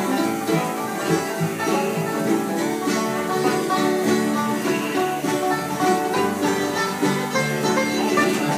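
Instrumental bluegrass jam: a banjo picking quick rolling notes over strummed acoustic guitars, playing steadily without a break.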